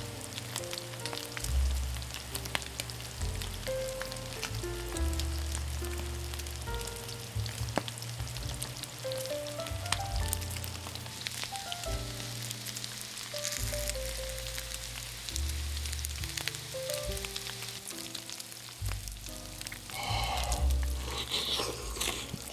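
Kimchi fried rice sizzling on a hot iron griddle plate, a steady hiss full of fine crackles, with a louder stretch near the end.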